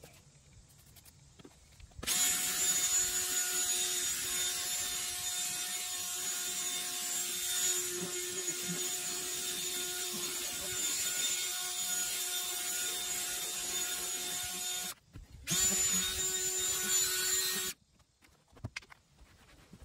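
DeWalt cordless drill spinning a scrub brush against a vinyl car seat: the motor's steady whine under the bristles' scrubbing hiss. It runs for about thirteen seconds, stops for a moment, then runs about two seconds more before cutting off.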